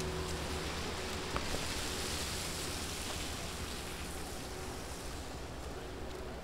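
Steady city street ambience: an even hiss of distant traffic and outdoor noise, with one small click about a second and a half in.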